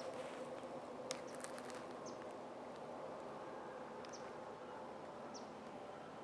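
Quiet outdoor ambience in leafless autumn woods: a faint steady hum, a few light clicks or rustles about a second in, and three brief high chirps spread through the rest.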